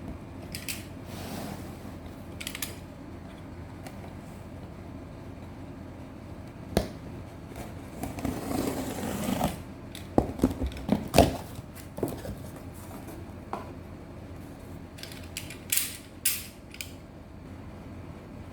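Scattered clicks and knocks of objects being handled, with a brief rustle about halfway through.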